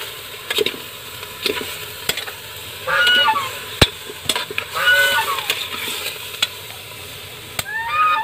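Pork pieces sizzling as they fry in a large metal pot, stirred with a metal utensil that clicks and scrapes against the pot. A bird gives short honking calls three times, about three, five and eight seconds in; these are the loudest sounds.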